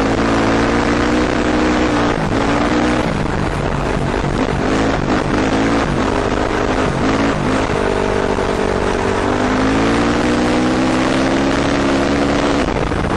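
KTM 450 four-stroke dirt bike engine running at speed under the rider, over a rush of wind and gravel noise. Its pitch holds steady, breaks up and jumps about in the middle as the throttle goes on and off, then settles again with a dip and climb before falling away near the end.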